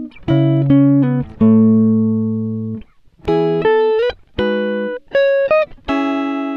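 Background music: a plucked guitar playing a slow melody of single notes and chords that ring out and fade, with a short break about three seconds in.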